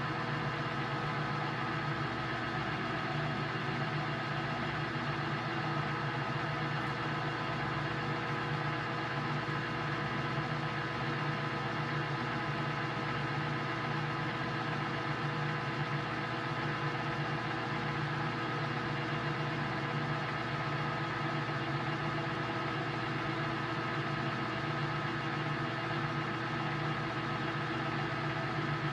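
Metal lathe running steadily under power feed, with a scissor-style knurling tool's wheels rolling a knurl into a 1 3/4 inch aluminum bar.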